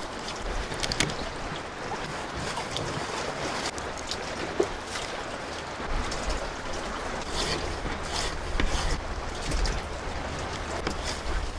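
Steady wash of sea waves with some wind rumble, and a few light clicks and scrapes of a kitchen knife on a plastic cutting board as a fish is filleted.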